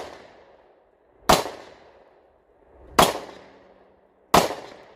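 Three pistol shots from a Ruger MAX-9 9mm handgun, spaced about a second and a half apart, each trailing off in a short echo.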